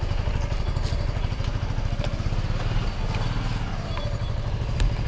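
Honda CR125's single-cylinder two-stroke engine running through a full FMF exhaust at low, steady revs, with a few light clicks.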